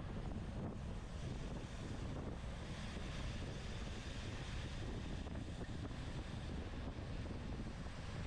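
Steady wind rush buffeting the microphone of a camera riding on a racing bicycle at speed.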